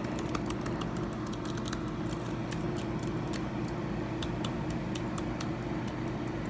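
MacBook Pro laptop keyboard being typed on: a quick, irregular stream of light key clicks, the keys working normally. A steady low hum runs underneath.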